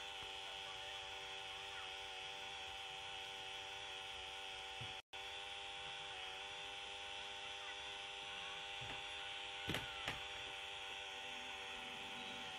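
A steady machine-like hum made of several even tones, cut out for an instant about five seconds in, with two short knocks close together near the ten-second mark.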